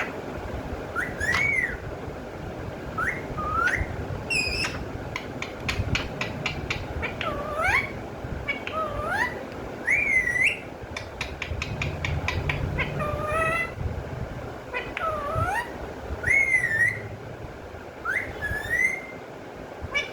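Pet parrot making short swooping whistled calls again and again, some rising and some dipping then rising, with two runs of rapid clicking chatter in between.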